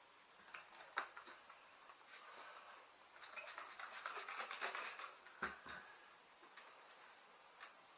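A rag rubbing over a dusty bicycle frame, a faint scratchy wiping that is strongest from about three and a half to five seconds in, with a few light clicks and taps from handling the bike.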